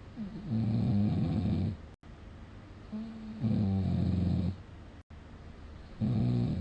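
A person snoring in their sleep: three low snores, each about a second long, coming roughly every two and a half seconds.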